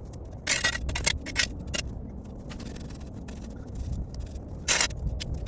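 Shovel blade scraping and digging into soil, several short scrapes with two longer ones, about half a second in and again near the end.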